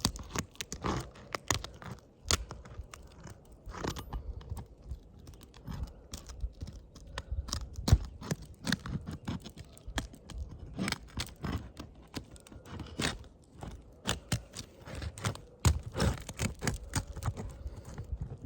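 Weathered asphalt shingles being pried and torn loose from the roof: irregular crunching, crackling and scraping as the sealant strips break, with one sharp loud crack about eight seconds in.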